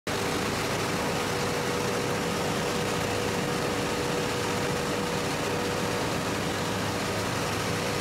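6N70 rice mill running steadily while milled white rice pours over its mesh sieve and out of the outlet chute: an even machine noise with one constant hum.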